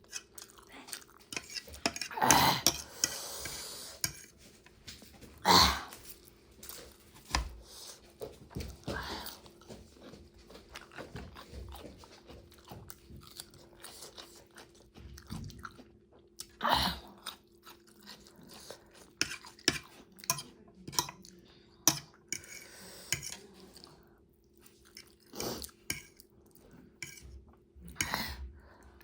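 Close-miked chewing and crunching of food, in many small irregular bites, with a few louder crunchy bites and faint clinks of cutlery.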